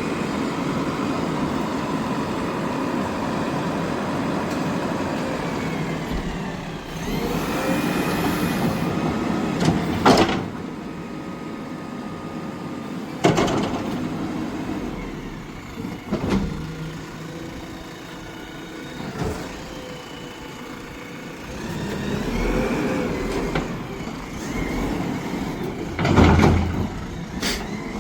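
JCB backhoe loader's diesel engine running, its pitch rising and falling a couple of times as the machine works, with several sharp metal knocks and clanks along the way.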